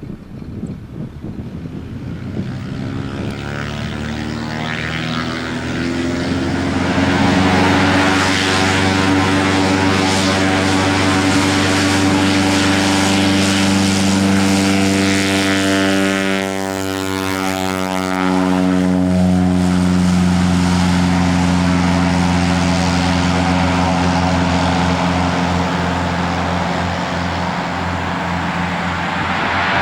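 Cessna Agwagon crop-dusting plane's piston engine and propeller drone, growing louder over the first several seconds as it approaches, then holding steady, with a short dip and a shift in pitch a little past halfway as it passes by.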